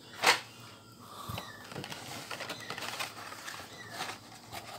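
Plastic blister-pack toy car cards being handled: a sharp clack just after the start, then light taps and plastic-and-cardboard rustling as a stack of carded cars is pulled from a cardboard box.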